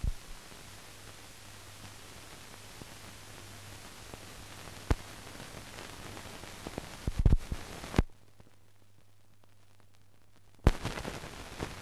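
No recorded sound: steady hiss and a low hum from a silent film's transfer, with scattered pops and crackles. It drops to a fainter hiss about eight seconds in, and the crackle returns near the end.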